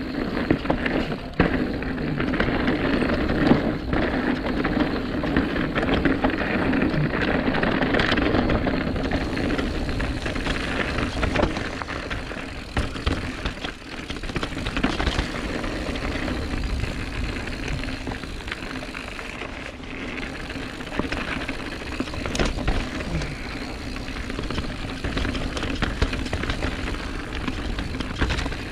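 Calibre Sentry mountain bike being ridden along a forest trail: steady tyre noise over the dirt, with scattered knocks and rattles from the bike over bumps.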